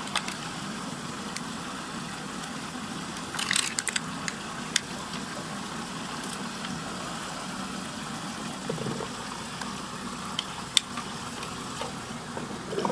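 Steady rush and churn of water spinning down a whirlpool drain, with a low steady hum beneath it. A short crinkle of plastic wrapping about three and a half seconds in, and a few faint ticks.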